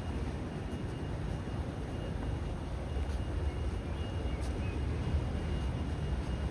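Steady low rumble of city background noise, with a faint thin steady tone above it.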